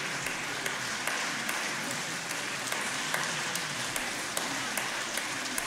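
Concert hall audience applauding, the clapping falling into a steady beat in unison at about two and a half claps a second.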